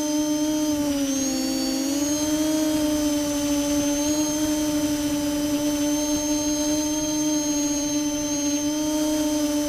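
Multirotor drone's electric motors and propellers whining steadily in flight, with the pitch dipping briefly about a second in and then coming back up.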